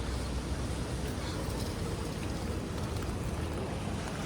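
Steady city street ambience: an even low rumble with a hiss over it and no distinct events.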